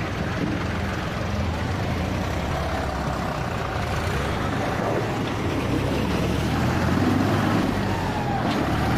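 Farm tractor's diesel engine running hard under load as it drags a loaded trailer through deep mud, rear wheels churning, the engine growing louder around seven seconds in.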